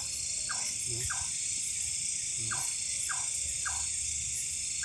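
Night insect chorus, a steady high shrill, with a small animal's short falling calls repeating about twice a second over it.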